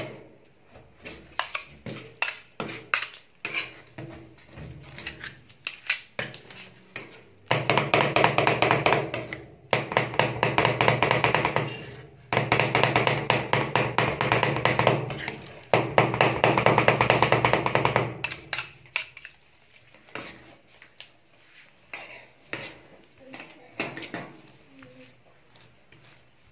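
Metal spatulas chopping and scraping on the steel cold plate of a rolled ice cream maker, working mint and dates into the freezing cream. Scattered taps at first, then four long runs of very rapid chopping about a third of the way in that stop near two-thirds, then sparser taps and scrapes.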